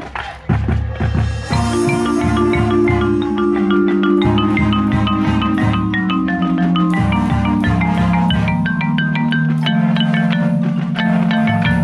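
Concert marimba played with four yarn mallets, heard close up. A few sharp percussion hits come first, then from about a second and a half in there are sustained low chords under quick, repeated higher notes.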